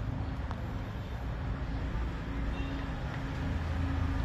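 Steady low mechanical rumble with a faint hum, like a running engine, and a few faint clicks.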